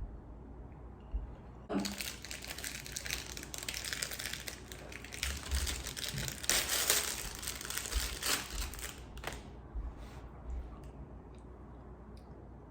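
Plastic candy wrapper crinkling and rustling as it is handled and opened, starting about two seconds in and dying away after about nine seconds into a few faint rustles.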